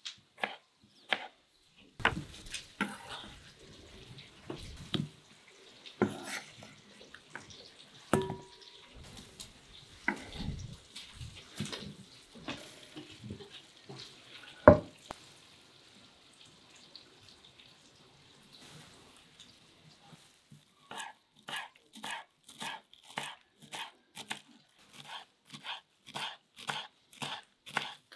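Knife cutting tomatoes on a wooden chopping board, then wet tomato pieces going into a glass bowl with irregular knocks and clatter and one sharp knock about halfway through. Near the end, a knife chopping fresh herbs on the wooden board in a quick, even rhythm of about three chops a second.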